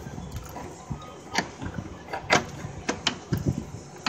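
A handful of sharp clicks and knocks from hand work on parts around the AC compressor in a car's engine bay, the strongest about a second and a half, two and a half and three seconds in.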